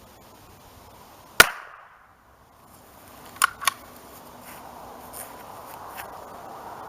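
A single .22 LR rifle shot from a Savage Mark II, fired at a distance, with a sharp crack about a second and a half in. About two seconds later come two quick, smaller clicks.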